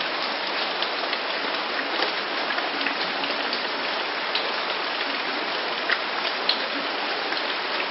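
Steady rain falling, with many individual drops striking close by as short sharp taps; two louder drops land about six seconds in.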